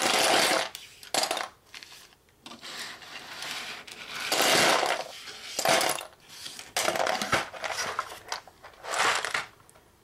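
Small plastic construction-kit pieces clattering as they are scooped up and dropped into a box, in half a dozen separate bursts of rattling.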